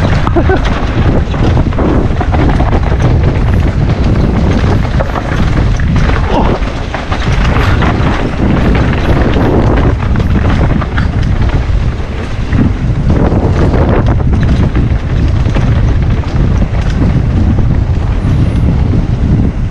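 Wind rumbling on an action camera's microphone while riding a mountain bike fast down a trail. Tyre noise and the bike knocking and rattling over bumps run underneath.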